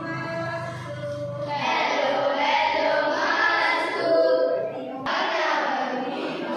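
A group of children singing together. The singing breaks off sharply about five seconds in and then carries on.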